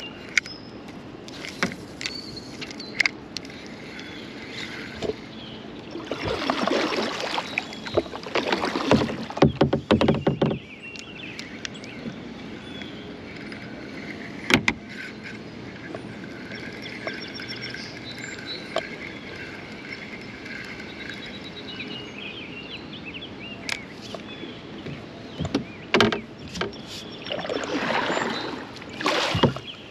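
Kayak paddling: two spells of paddle strokes with water splashing and dripping off the blades, one about six seconds in and one near the end. Scattered sharp knocks in between, and faint high whistling notes in the quieter middle stretch.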